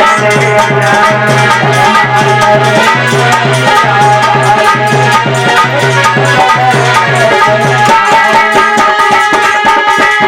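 Music with a steady, quick beat: drums and shaker-like percussion over sustained melodic lines. The low thudding beat drops out about eight seconds in while the rest plays on.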